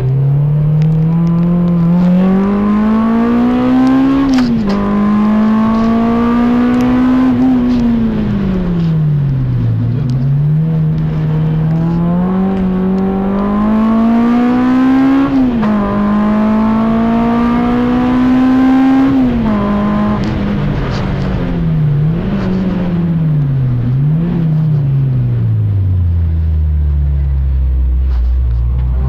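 Car engine heard from inside the cabin under hard driving: the revs climb through the gears with a quick drop at each shift and fall away as the car slows. Near the end the revs dip and rise twice in quick succession, then settle into a low steady drone.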